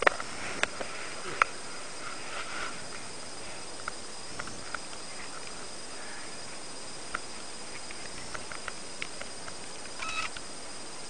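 Handling noise: scattered clicks, taps and faint rustles, with a sharp click at the start and another about a second and a half in, over the steady hiss of a small camera's microphone as it is moved about over a paraglider wing lying on gravel.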